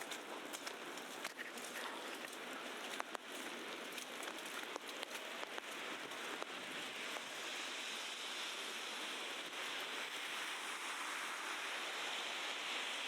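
Wet snow falling in a city street, pattering with scattered sharp ticks, then turning into a steady hiss that grows louder over the second half.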